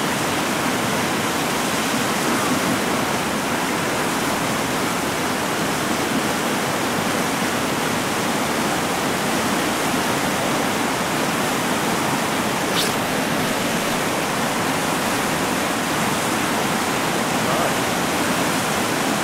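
River rapids rushing steadily: churning whitewater pouring over a ledge and through a hole.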